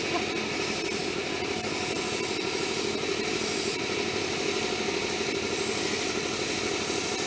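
Airbrush spraying paint in short on-and-off bursts of hiss, over a small air compressor running steadily.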